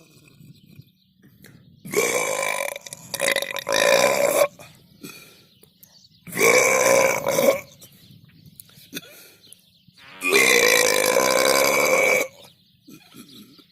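A person burping four times on purpose: two burps in quick succession, another a couple of seconds later, then one long drawn-out burp of about two seconds near the end.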